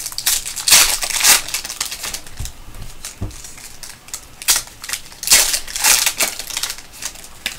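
Foil wrapper of a Panini basketball trading-card pack crinkling as it is torn and pulled open by hand, in irregular bursts.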